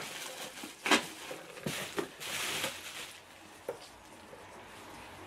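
Cardboard box and packing material being handled by hand: rustling, crinkling and a few short knocks as things are moved in and out of the box, with a longer rustle a little after two seconds.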